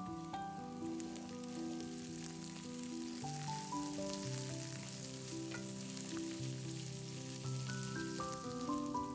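Onions and minced garlic sizzling in oil in a cast-iron skillet as they are stirred, a steady frying hiss. Soft instrumental background music plays with slow, held notes.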